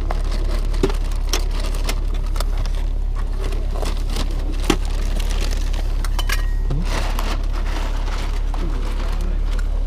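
A plastic bag rustling, with scattered clicks of small objects and cable being handled as hands rummage through it, over a steady low rumble. One sharper click comes near the middle.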